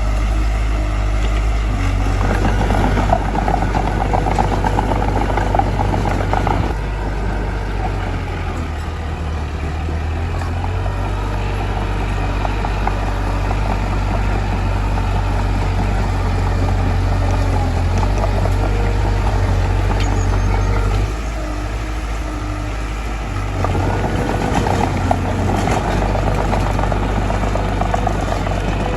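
Mitsubishi bulldozer's diesel engine running steadily under load, with a louder rattling, clattering noise twice over the engine, about a second in and again from about 24 s in. The engine eases off briefly a little before that second rattle.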